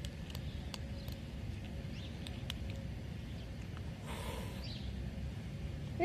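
Kittens crunching dry cat food: a few faint, crisp clicks over a steady low outdoor rumble, with a brief rustle about four seconds in.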